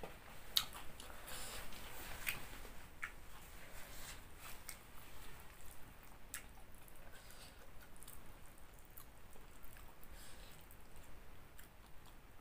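A person chewing a mouthful of green papaya salad and noodles with the mouth closed, with scattered short, sharp clicks and smacks of the lips and tongue.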